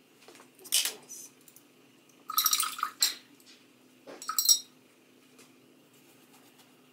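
Paintbrush clinking and rattling against a glass or ceramic container in three short bursts: just before a second in, around two and a half to three seconds, and just after four seconds.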